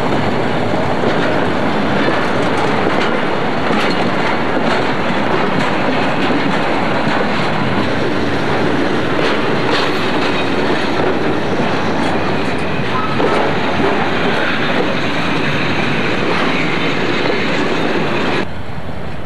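Freight wagons rolling past close by, wheels clacking rhythmically over rail joints amid a steady rumble of running gear.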